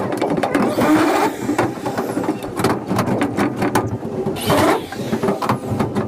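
Cordless drill driving screws into spandrel ceiling panels in two short bursts, about a second in and again about four and a half seconds in, amid frequent clicks and clatter of the panels being handled.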